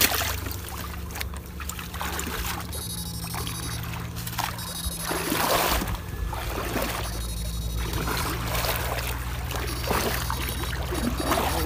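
Wading and splashing through shallow muddy water in repeated surges. Under it runs a steady low electrical hum, and a high whine comes and goes several times; both fit the backpack electrofishing shocker in use.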